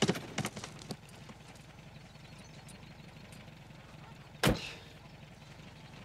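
A car engine idling low and steady. In the first second there are several clicks and knocks of a car door being opened, and about four and a half seconds in a single loud thump of the door being shut.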